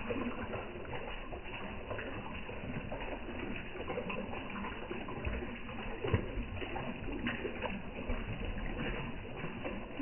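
Water sloshing and slurping at the pond surface as koi suck in floating food pellets, a steady watery noise with small scattered splashes and one sharper splash about six seconds in.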